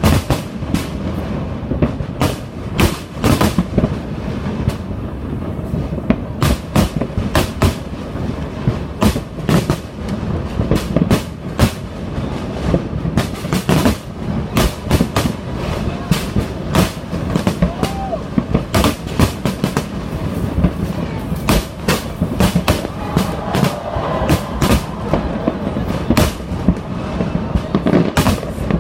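Large fireworks display going off without pause: a rapid, irregular run of sharp bangs and crackles over a continuous low rumble of overlapping booms.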